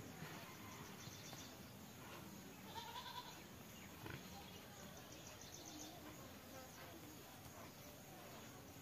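Faint outdoor background with a few brief, quiet animal calls, one about three seconds in.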